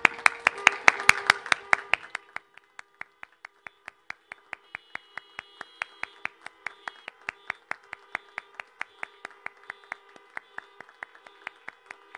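A small group clapping hands, loudest and densest for the first two seconds, then settling into an even, lighter beat of about four claps a second.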